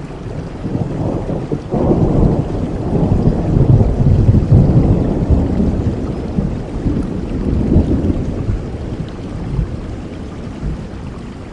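Rolling thunder over steady rain. A low rumble swells about two seconds in, peaks around the middle and slowly dies away.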